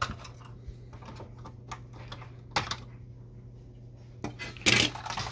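Light clicks and knocks of a printed circuit board and plastic printer parts being handled, with a louder clatter near the end as the board is put down on the workbench.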